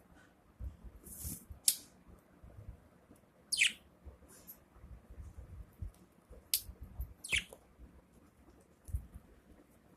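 Budgerigar making a handful of short, sharp high squeaks and clicks, two of them dropping steeply in pitch, which the owner takes for unusual sneezes. Soft low thumps come between them.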